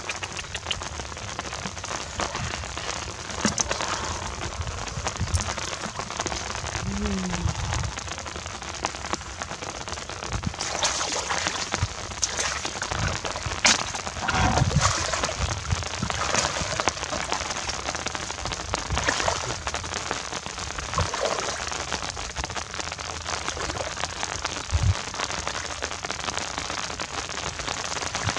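Steady rain pattering on shallow floodwater and wet grass, with a few sharper splashes or knocks from wading in the water.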